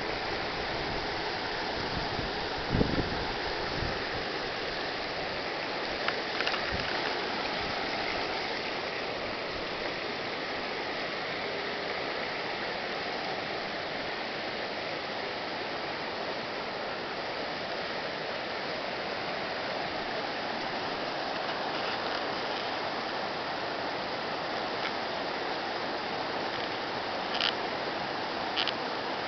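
River rapids rushing over rocks: a steady, full water noise. A few brief bumps stand out, about three seconds in, around six seconds and twice near the end.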